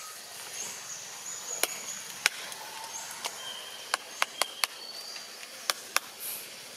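About eight sharp, irregular clicks or snaps, three of them in quick succession around the middle, over a faint outdoor background with thin high whistled tones.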